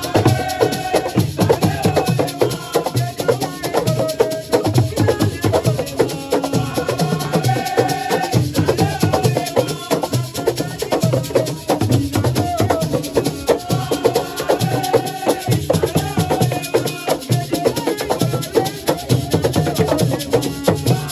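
Senegalese assiko music played live: a fast, steady percussion rhythm with voices singing over it.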